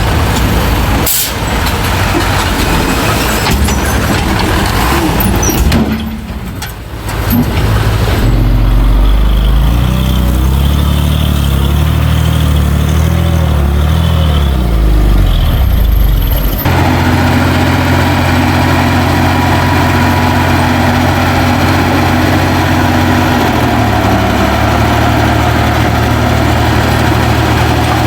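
Heavy diesel engines of earthmoving machinery running at work, their pitch rising and falling under changing load in the middle. The sound changes abruptly about two thirds of the way through and then settles into a steady run.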